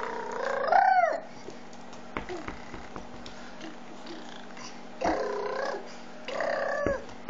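A young child's wordless vocal noises: a loud squealing call at the start that rises in pitch as it ends, then two shorter squeals about five and six and a half seconds in.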